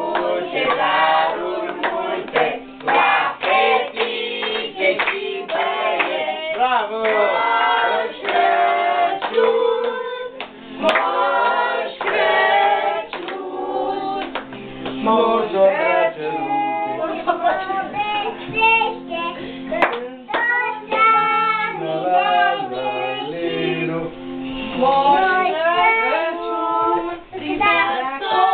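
A group singing a song together, women's and a child's voices among them, with hand clapping along.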